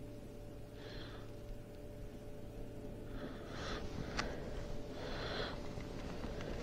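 A person's breathing through the nose, three short breaths or sniffs, over a faint steady hum, with one sharp tick a little after four seconds in.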